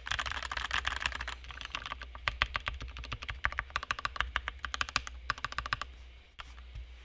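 Fast, continuous typing on a modded mechanical keyboard with lubed linear switches, key after key clacking in quick runs, stopping shortly before the end.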